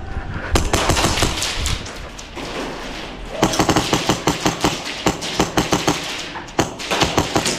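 Airsoft gun firing in rapid strings of shots, about six or seven a second. There is a short string about half a second in, then after a pause a longer string that runs on with one brief break.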